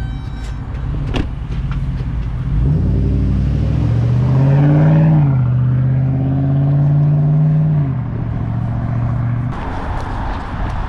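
GMC Sierra's 5.3-litre V8 through a Carven TR muffler, accelerating away down the street: the exhaust note climbs, drops at a gear change about halfway through, holds steady, then falls away near the end. A single thump sounds about a second in.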